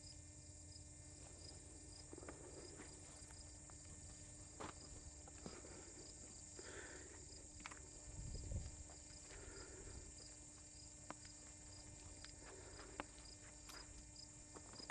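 Near silence with faint, irregular footsteps on dirt and grass and a few light knocks, over a steady low hum.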